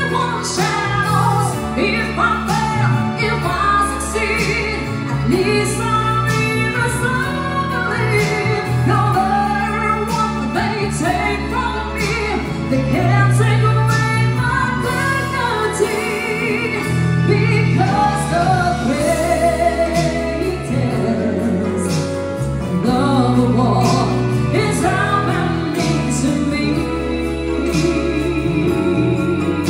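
Live band music: a woman singing lead through a microphone over a steady bass line and keyboards, with light percussion hits.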